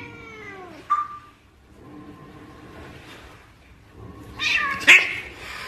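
Silver tabby cats in a standoff: a drawn-out meow falling in pitch, then quieter sounds, and from about four seconds in a louder, harsher cat cry with a sharp knock in the middle of it.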